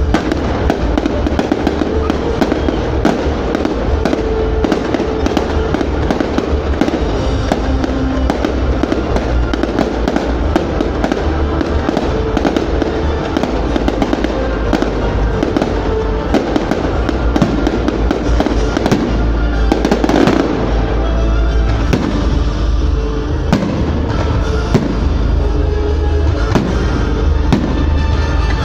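Fireworks going off in a rapid, unbroken barrage of bangs and crackles over the display's music soundtrack, with one heavier burst about twenty seconds in.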